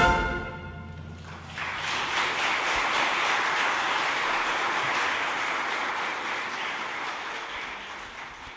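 A wind band's final chord dies away in a reverberant hall, then the audience applauds steadily, fading out near the end.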